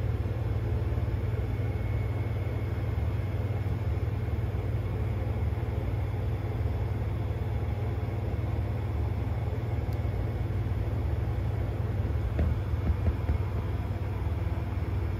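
A steady low machine hum with even background noise, and a few faint knocks about twelve seconds in.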